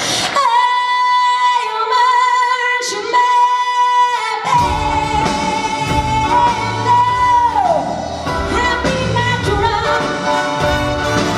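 A woman singing live into a microphone, holding a long high note alone with no accompaniment, then the band comes in under her about four and a half seconds in and she carries on singing with it.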